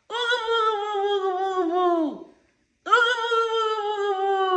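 A high voice holding two long, steady notes of about two seconds each, with a short break between; each drops in pitch as it fades out.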